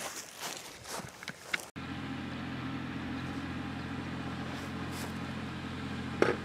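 Brief rustling and light knocks in grass, then, after a cut, a tractor engine running steadily with a low, even drone. A single sharp click comes near the end.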